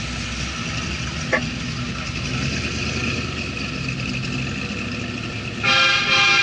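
A vehicle engine runs steadily against background noise, with a single sharp click about a second in. Near the end a loud horn starts to blow, a many-toned blast that is the loudest sound here.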